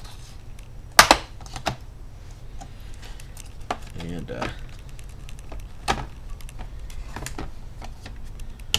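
Plastic retaining clips of an Asus Q501LA laptop's bottom case popping loose one by one as it is pried off: several sharp snaps, the loudest about a second in.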